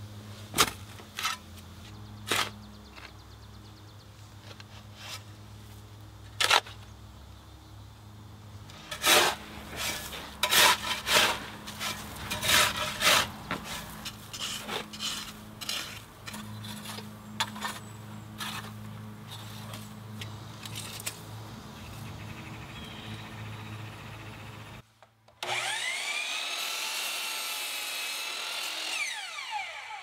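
A steel spade scraping and chopping into sod and soil, in irregular sharp strikes that cluster thickly about nine to fourteen seconds in. About 25 seconds in, after a moment of silence, a compound miter saw's motor runs with a whine that rises and falls.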